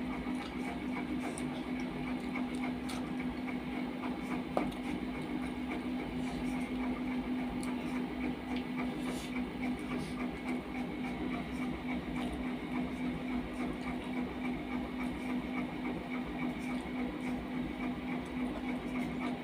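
A steady machine hum, low in pitch, runs throughout. Over it come faint scattered clicks and smacks of someone eating rice and curry by hand.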